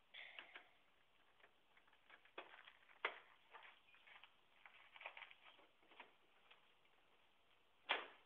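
Near silence broken by faint scattered clicks and ticks, with two sharper clicks: one about three seconds in and one near the end.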